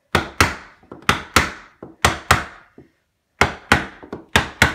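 Claw hammer striking a hardwood block held against a curved vinyl glazing stop, knocking the stop into a half-round window frame to seat it. About ten sharp wooden knocks, mostly in quick pairs, with a short pause before a faster run near the end.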